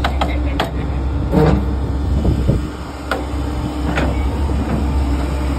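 An engine running at a steady idle, a low hum, with several sharp clicks and knocks over it.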